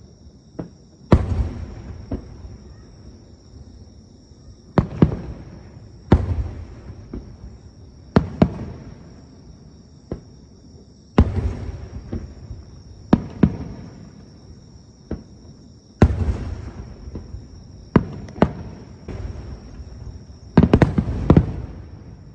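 Aerial firework shells bursting, a dozen or so sharp booms at uneven intervals, each followed by a rolling echo that dies away; two bangs come in quick succession near the end.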